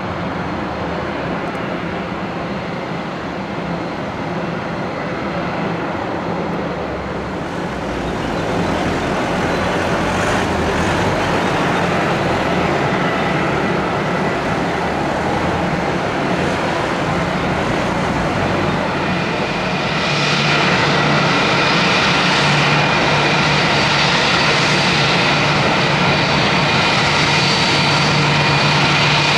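Airbus A321's jet engines running at taxi power: a steady rushing noise. About two-thirds of the way through it gets louder, with a steady high whine over a low hum.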